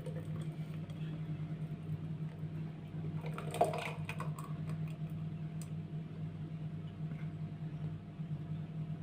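Soft squishing and a few light spoon clicks from thick tamarind pulp being worked in a bowl, over a steady low hum.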